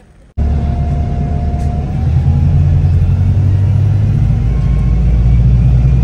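Steady, loud low rumble of a moving road vehicle's engine and tyres. It cuts in suddenly just after the start, with a faint whine that rises slightly about two seconds in.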